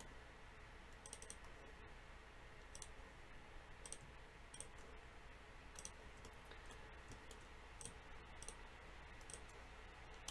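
Faint computer mouse clicks, about a dozen spread through, some in quick pairs, over low room hiss.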